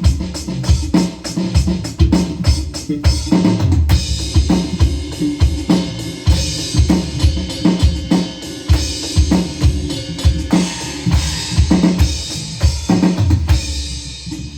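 Drum-heavy music with a steady beat of loud bass-drum thumps and snare hits, about two a second; cymbals join in about four seconds in.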